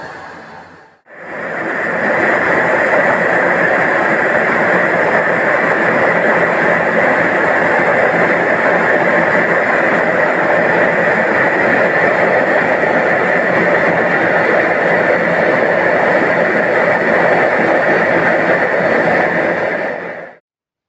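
A loud, steady rushing noise that starts about a second in and cuts off suddenly near the end.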